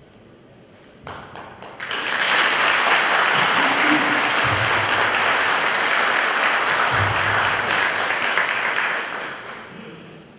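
Audience applause: a few scattered claps about a second in, swelling into steady applause that fades out near the end.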